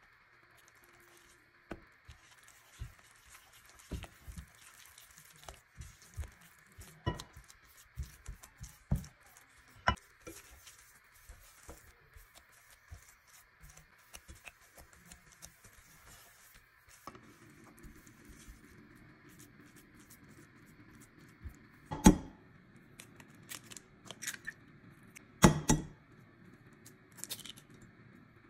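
Silicone spatula stirring and scraping a thick flour dough in a nonstick pot, with many light irregular knocks and scrapes against the pot. Later come two loud, sharp cracks of eggs being cracked on a glass bowl. A faint steady hiss runs underneath.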